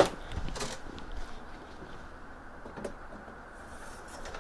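A storage drawer being pulled out from underneath: a sharp knock at the start, then a few faint knocks and scrapes as it is handled.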